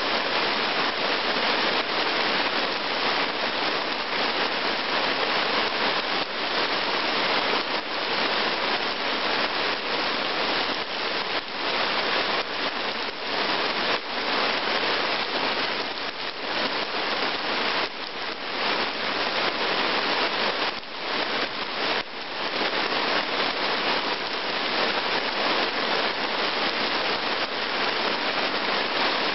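Heavy rain falling steadily, splashing into puddles on muddy forest ground.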